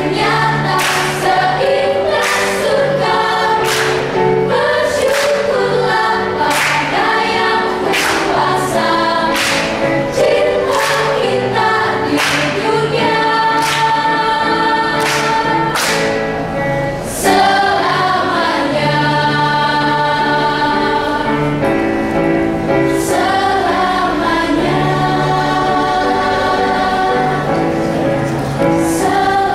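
Student choir singing words in several-part harmony, with sustained notes over a steady low bass line.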